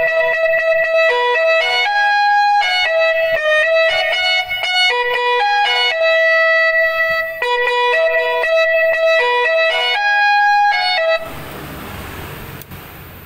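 Electronic 'telolet' horn module sounding through a TOA horn speaker, playing a quick melody of stepped notes. The tune cuts off about eleven seconds in, leaving a steady low noise.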